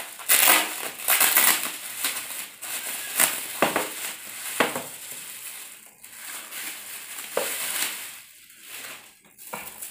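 Plastic bubble wrap rustling and crinkling as it is pulled off a tripod and crumpled up by hand, with a few sharp crackles. It is loudest in the first couple of seconds and quieter near the end.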